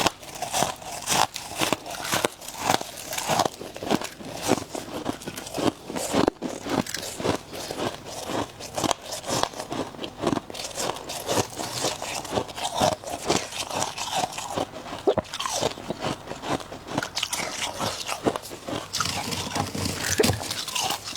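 Ice being bitten and chewed, a long run of irregular crunches in quick succession.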